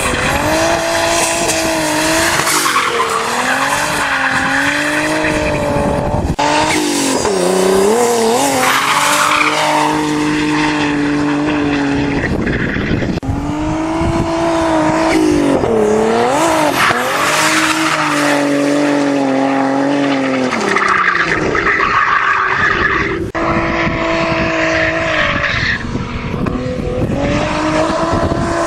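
BMW sedan being drifted: its engine revs rise and dip again and again, held high for long stretches between quick drops, with tyres squealing and skidding.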